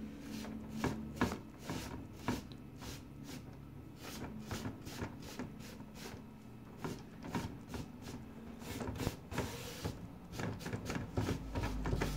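A small hand pad rubbing and scrubbing across grouted glass mosaic tiles in short, irregular strokes, wiping off excess grout, with a longer stretch of steady scrubbing near the end.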